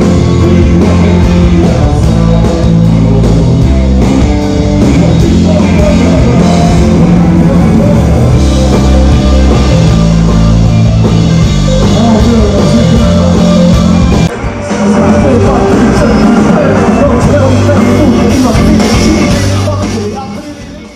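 Live rock band playing loud: a male singer over keyboards, drums and guitar. There is a brief drop about two-thirds of the way through, and the music fades out at the end.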